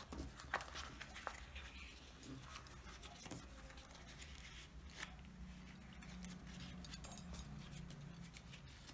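Faint rustling and crinkling of a banana leaf being folded by hand into a parcel, with a few soft clicks and taps, over a low steady hum.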